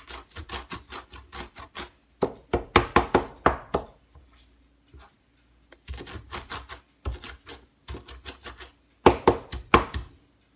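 Kitchen knife rapidly chopping and mincing leafy greens on a plastic cutting board: quick runs of strikes, several a second, with a short pause about four seconds in.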